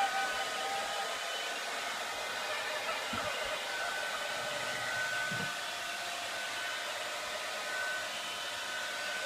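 Hair dryer running steadily: a constant blowing rush with a steady whine over it.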